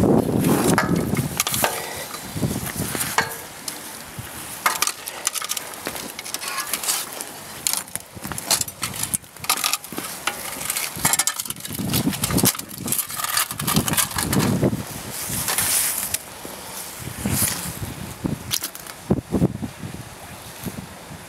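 Scraping, clicking and clattering as a bent strip of rusty sheet metal crusted with mussel shells is hauled out of the water on a magnet and put down on paving. Gusts of wind hit the microphone, loudest at the start and again about two-thirds of the way through.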